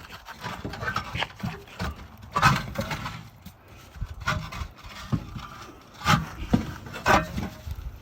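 Irregular knocking and scraping, with about half a dozen sharp hits spaced unevenly and rubbing noise between them.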